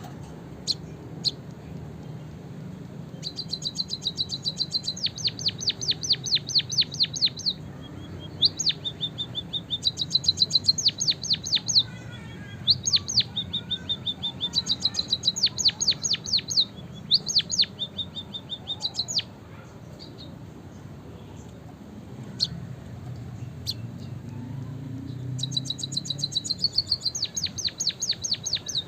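White-headed munia (emprit kaji) singing canary-style song, repeated high, fast trills in phrases of one to three seconds separated by short pauses, over a low steady background hum.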